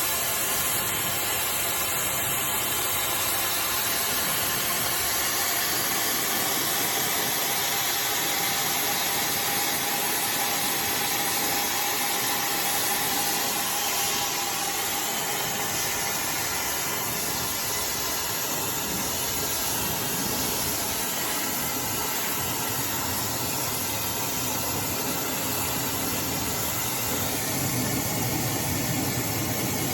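iDryer AI Pro Style hair dryer running, a steady airy rush with a faint whine partway through.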